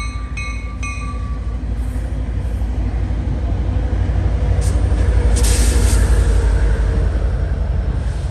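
Sound Transit Sounder commuter train passing close by: a steady rumble of wheels on rail that builds to its loudest about halfway through, with a short rush of hiss as the diesel locomotive pushing at the rear goes by.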